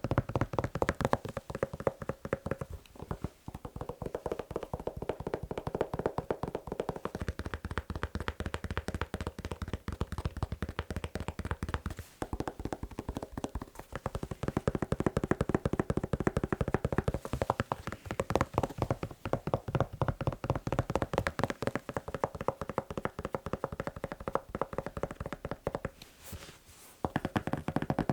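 Fast tapping on a shoe, many quick taps a second running almost without a break, with a short pause about a second long near the end.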